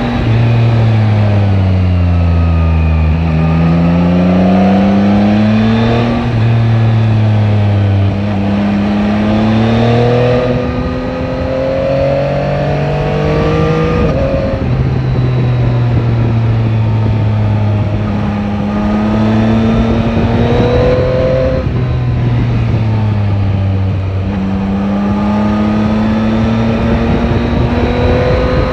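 Yamaha Tracer 9 GT's 890 cc inline three-cylinder engine under way on a twisty road. The engine pitch repeatedly drops and then climbs again as the bike slows and accelerates, over steady wind and road noise.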